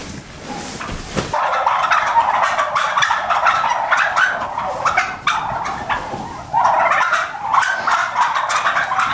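A large flock of domestic turkeys calling all at once: a dense chorus of overlapping gobbles that comes in loudly about a second in and carries on without a break.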